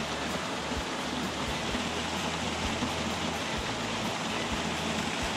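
Steady rush of a small mountain-creek waterfall, a cascade of about 15 feet, splashing into a rock pool, with a few faint low bumps.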